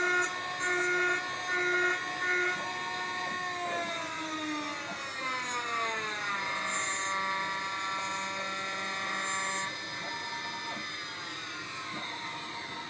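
CNC machine's axis motors whining as they drive the axes: a few short stop-start moves first, then a long move whose pitch falls, holds steady, and drops again near the end.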